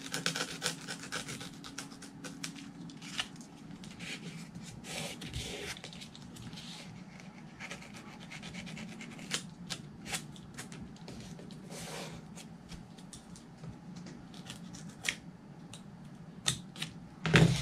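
A blade trimming excess EPP foam along a folded Coroplast winglet: irregular short scrapes and clicks, with a few longer slicing strokes, and rustling of the plastic as it is handled.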